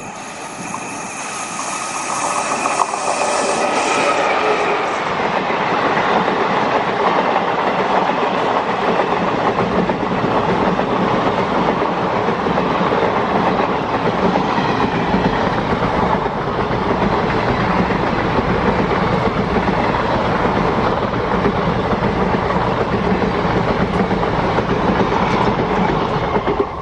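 Indian Railways WAP-4 electric locomotive passing close, its steady tones dropping slightly in pitch as it goes by. Then a long rake of passenger coaches rolls past at speed, with a steady rumble and the clickety-clack of wheels over rail joints.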